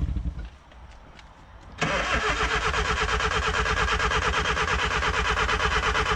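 Starter cranking a petrol Suzuki Vitara engine in a steady, even rhythm without it catching. It begins suddenly about two seconds in, while the owner feeds camping gas to the engine because fuel isn't getting through, which he puts down to everything being clogged from driving through water.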